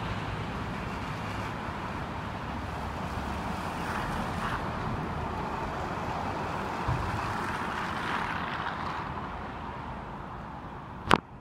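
Car tyres hissing on wet asphalt as traffic passes, swelling twice and easing off near the end. A single sharp click just before the end.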